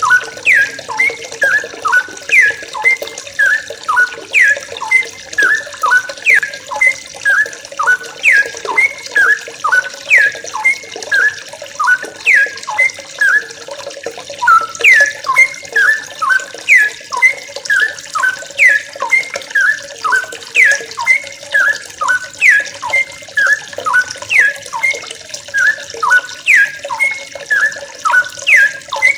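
Several yellow-vented bulbuls chirping in a busy chorus: short, sharp notes that fall in pitch, about two or three a second and overlapping, over a steady hiss like running water.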